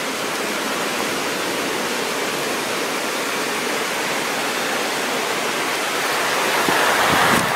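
Steady rushing of a nearby river: an even wash of water noise, swelling slightly near the end.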